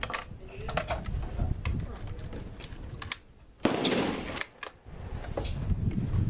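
A single .22lr rifle shot from a Savage Mark II bolt-action, sharp and decaying quickly, a little over halfway through, with a few small clicks before it and low wind rumble on the microphone.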